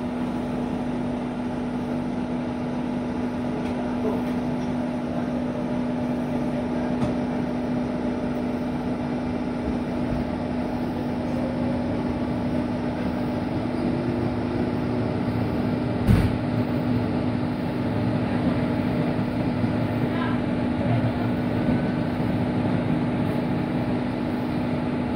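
Electric commuter train running at speed, heard from inside the carriage: a steady rumble of wheels on rails under a constant low hum, with one knock about sixteen seconds in.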